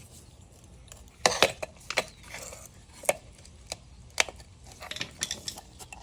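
Flathead screwdriver prying and twisting the metal tabs of a car radiator cooling fan motor's housing: irregular sharp metallic clicks and a brief scrape.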